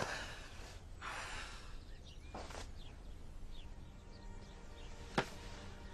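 Quiet room ambience with a few faint high chirps, then a single sharp click a little after five seconds.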